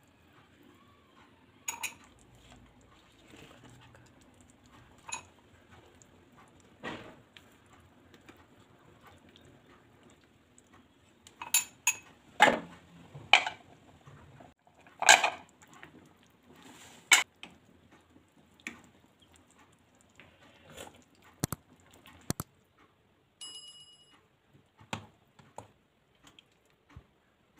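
Cooking utensils clinking and knocking against a non-stick pan, an aluminium pot lid and a ceramic serving bowl: scattered sharp knocks, thickest and loudest around the middle, with a short high metallic ring a little later.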